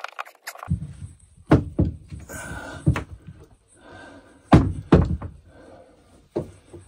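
Hand-pumped hydraulic crimper pressing a lug onto a heavy battery cable: about six sharp metal clacks and knocks as the pump handle is worked and the die released, the loudest two close together a little past the middle, with a short rushing noise before them.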